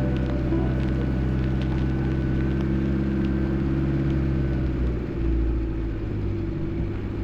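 4WD vehicle driving on a dirt road: a steady low engine drone and rumble.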